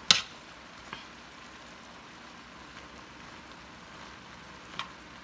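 Cabbage, sausage and bacon frying in a stainless steel pot with a steady soft sizzle. A metal spoon strikes the pot with a sharp clink just after the start, then taps lightly about a second in and again near the end.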